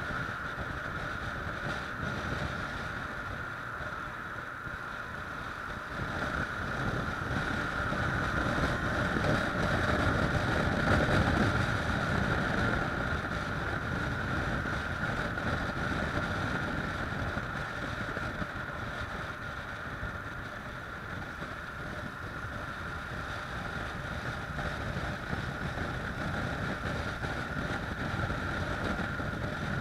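Kawasaki ER-6f motorcycle's parallel-twin engine running under way, mixed with wind and road noise on the camera microphone. It grows louder about a third of the way in, then eases back.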